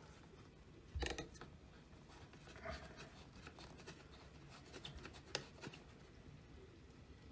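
Faint handling noises: scattered light clicks, knocks and rubbing, with the plainest knock about a second in.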